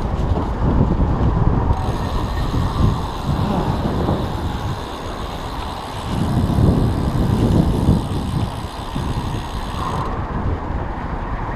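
Bicycle freewheel ratchet clicking rapidly while the rider coasts downhill, over wind rumble on the microphone. A steady high hiss sets in about two seconds in and drops away near the end.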